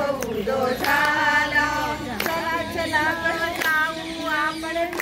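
A group of women singing a Marathi devotional bhajan to the goddess Tulja Bhavani, with no instruments, clapping their hands on the beat.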